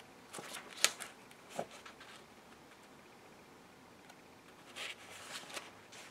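Pages of a glossy booklet being handled and turned, the paper rustling with a sharp flick just under a second in and another rustle around five seconds in.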